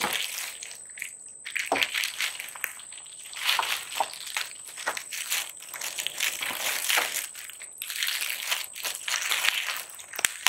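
Clear plastic bag crinkling and crackling in irregular bursts as hands press and pull at a folded pop-up mesh butterfly cage packed inside it.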